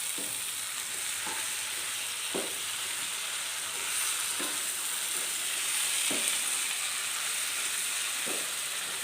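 Beef fry sizzling steadily in a pan as it is stirred, with a spoon scraping and knocking against the pan about every two seconds.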